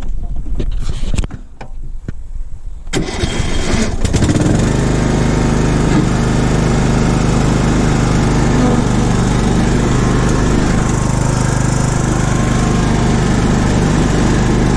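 Cub Cadet LTX 1045 riding mower's 20 hp Kohler Courage engine starting: a few clicks, a short crank, then it catches about four seconds in and runs steadily.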